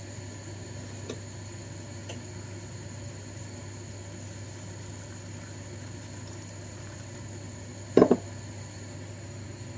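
Steady low hum throughout, with a couple of faint clicks early on and a short, loud knock about eight seconds in as a ceramic teapot is set down on the counter.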